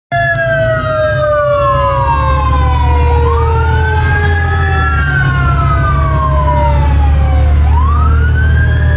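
Fire truck siren wailing, rising twice and falling slowly after each rise, over the steady low drone of the truck's engine.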